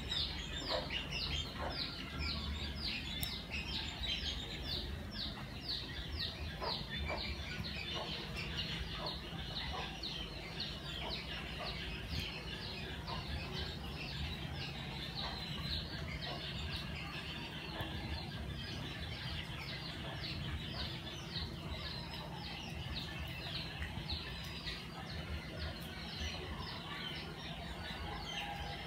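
Small birds chirping in a rapid, unbroken series of short, high, falling chirps.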